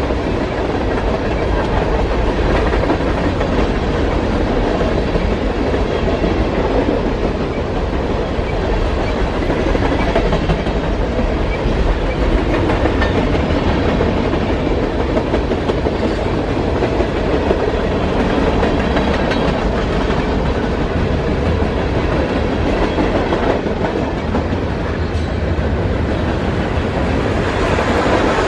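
BNSF westbound manifest freight train's tank cars and boxcars rolling past: a steady, loud rumble of steel wheels on the rails.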